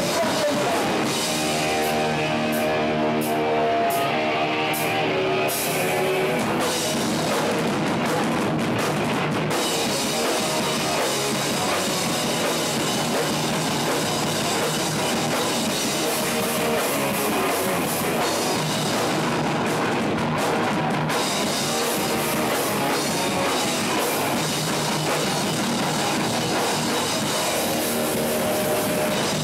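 Hardcore punk band playing live and loud: distorted electric guitars, bass and drum kit. For a few seconds near the start the guitars hold steady chords, then the full band plays on densely.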